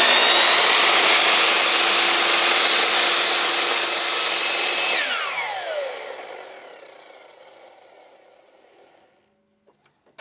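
Ridgid miter saw running at full speed and cutting through a small piece of wood. About five seconds in it is switched off, and its whine falls in pitch and fades as the blade spins down.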